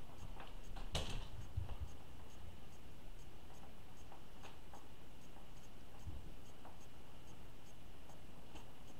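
Faint handling noises from a canvas and a stick being moved over a plastic tub: a light knock about a second in and a few soft clicks, over a steady low hiss and a faint regular ticking about three times a second.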